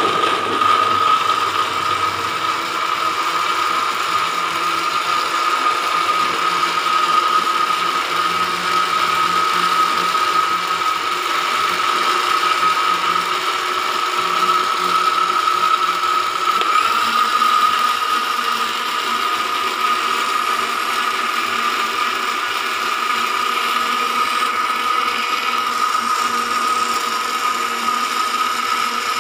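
Electric kitchen blender running steadily, its motor giving a high, even whine; the sound shifts slightly about seventeen seconds in.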